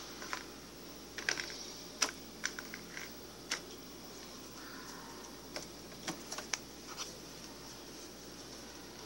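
Irregular sharp clicks and taps, about a dozen, in two clusters with a pause in the middle, over a steady hiss.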